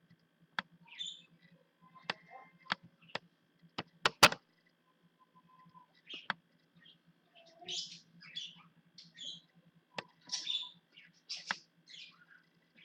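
Irregular sharp clicks and taps, typical of a computer mouse and keyboard in use, with the loudest cluster about four seconds in. Short high chirp-like sounds come and go between them.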